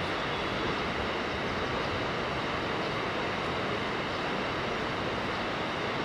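Steady rushing of a flowing mountain river: an even, unbroken roar.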